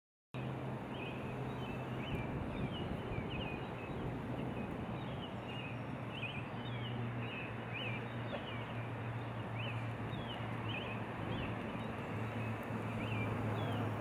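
Outdoor ambience of many small birds chirping: short, quick high calls, several a second, over a steady rushing background and a low steady hum. It starts abruptly just after the beginning.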